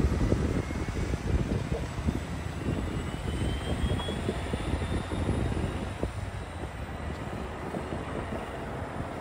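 Road traffic crossing the railroad tracks: a transit bus pulling away and cars driving over the crossing make a steady low rumble that eases slightly, with gusts of wind on the microphone. A faint high whine rises slowly in pitch through the first half.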